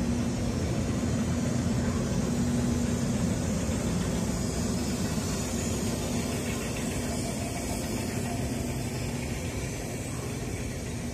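Freight train pulling out past the platform: electric locomotive E334 with a steady low hum that fades after about four seconds, then covered freight wagons rolling past with a steady rumble that slowly grows quieter.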